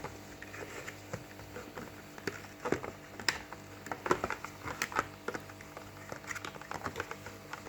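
Irregular light clicks, taps and rustles of small boxed accessories and their packaging being handled and unwrapped by hand.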